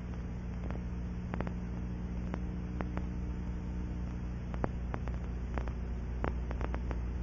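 Steady electrical hum with scattered faint clicks, no narration or music.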